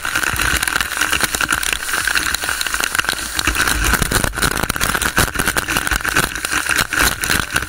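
Fast shallow water rushing down a corrugated metal culvert pipe as people wade through it. A steady rush runs under many irregular knocks and splashes.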